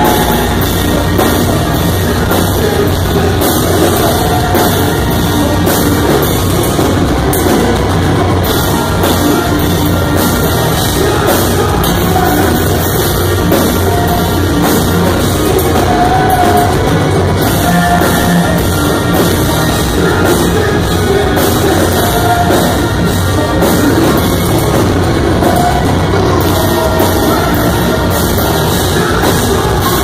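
Heavy rock band playing live: distorted electric guitars, bass and a full drum kit, with a singer's voice over the top, loud and unbroken.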